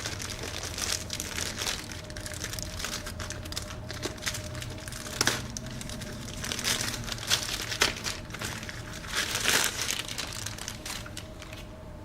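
Packaging crinkling and rustling as the solar charger is unwrapped, in irregular crackles with a few louder ones in the second half.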